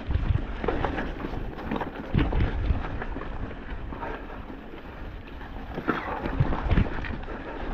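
Wind buffeting the microphone over the rumble and irregular knocks of a mountain bike ridden on a rough dirt trail.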